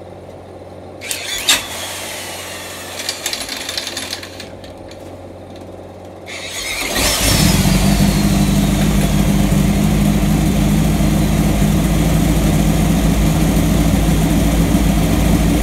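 Air-cooled Volkswagen flat-four engine on a bench stand being spun over with a Makita drill in place of a starter for a few seconds, with clicks and whirring. It catches about six and a half seconds in, picks up speed and settles into steady, even running.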